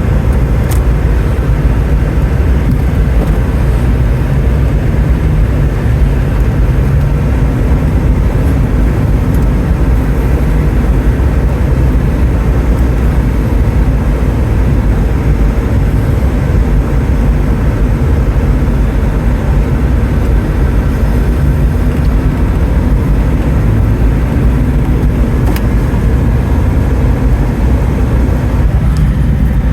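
Steady low rumble of a car driving at an even speed: road and engine noise.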